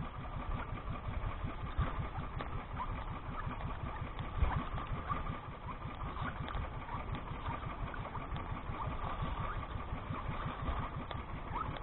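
Small engine of an outrigger fishing boat (bangka) running steadily while under way.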